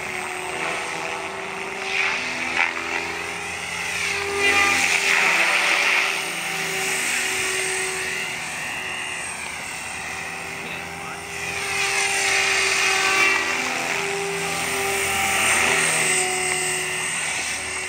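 Mikado Logo 480 electric RC helicopter flying aerobatics: a steady whine of motor and rotor blades that rises and falls in pitch and swells in loudness as it manoeuvres.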